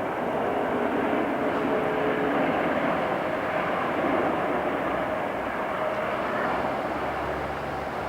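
Airbus A380's jet engines during its landing: a steady rush of engine noise with a faint whine in it, loudest a few seconds in and then slowly easing off.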